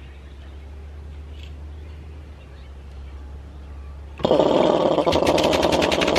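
Homemade tankless air compressor, an electric motor driving a piston pump, switched on about four seconds in: a low steady hum gives way to a sudden loud, busy running noise with a fast crackle on top.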